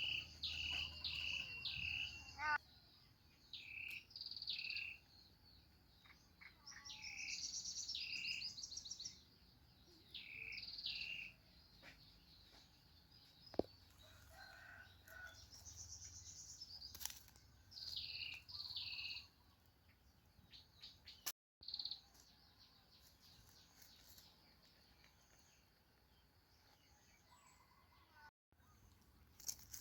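Birds chirping outdoors in bouts of short, repeated high calls, with a steady thin high-pitched insect drone underneath; the calls thin out about two-thirds of the way through, leaving faint background.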